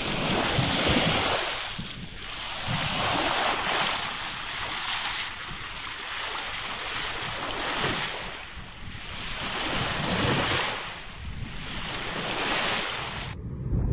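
Wind and choppy sea rushing past a sailing yacht under way: a noisy hiss that swells and fades every two to three seconds, with wind buffeting the microphone.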